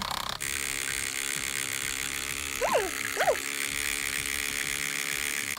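Capresso electric milk frother running steadily, its whisk spinning in a powdered-creamer mixture with a small-motor whir. Its tone shifts slightly about half a second in. Two short falling squeaky tones come near the middle.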